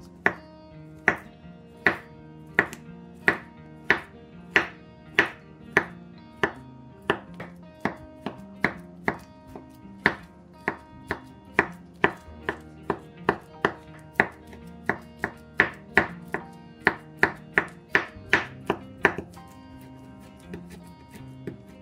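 Cleaver chopping banana on a wooden cutting board: a regular sharp knock of the blade striking the board, gradually speeding up from about one and a half to two chops a second, then stopping near the end.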